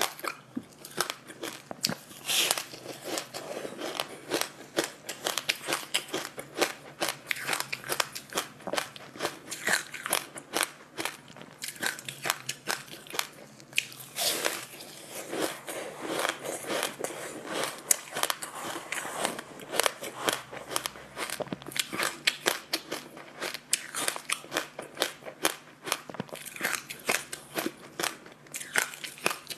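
A person biting and chewing a sesame-seed-coated piece of food, making dense crunching and crackling with many quick snaps one after another.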